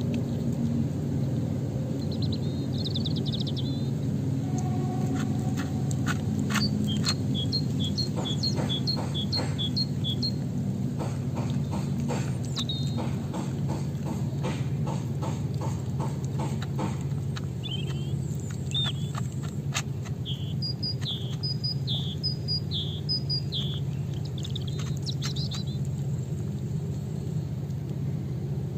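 A cat crunching dry food from a plastic bowl, heard as a run of rapid sharp clicks through the middle. Small birds chirp in short bursts of quick repeated notes over a steady low rumble.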